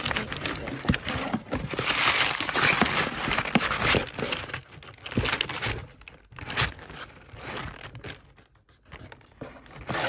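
Rustling and crinkling of packaging and items being handled close to the microphone, with scattered knocks and taps; densest about two to four seconds in, quieter for a while near the end, then a brief rustle again.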